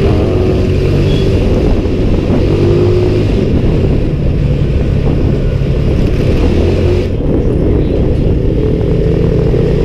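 Small motorcycle engine running steadily at low riding speed, its pitch wavering a little with the throttle, under a noisy rush of wind and road.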